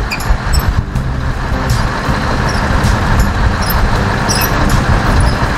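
The V8 diesel engine of a Scania R580 tractor unit runs with a steady low drone while the heavy-haul truck creeps along at walking pace under a multi-axle load.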